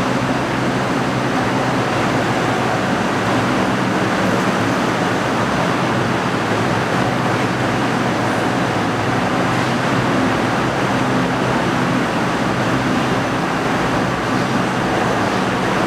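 Steady, loud machinery noise in a kiln workshop, with a constant low hum underneath and no separate knocks.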